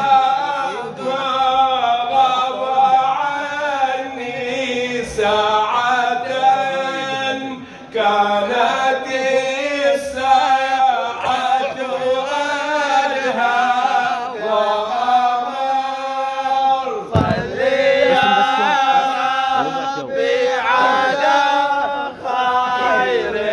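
Men's voices chanting an unaccompanied devotional song in praise of the Prophet (salawat), several voices singing together in long phrases with short breaks between them. A single low thump comes about two-thirds of the way through.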